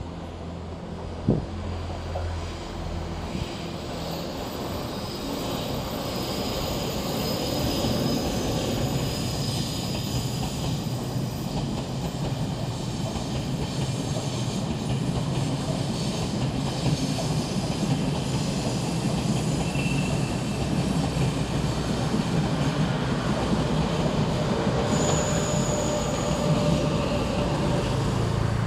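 A train running past on the tracks: a steady rumble that builds over the first few seconds and holds, with a few short high wheel squeals on top. A single sharp knock comes about a second in.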